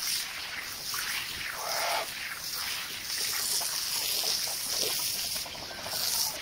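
Wet washing noise from a rug being cleaned: water splashing and trickling on a soaked carpet, with an uneven hiss that rises and falls.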